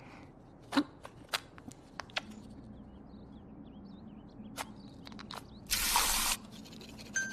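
Small plastic clicks and taps as a toothbrush and toothpaste tube are handled and uncapped, then, near six seconds in, a bathroom mixer tap is opened and water gushes briefly into a plastic cup for about half a second.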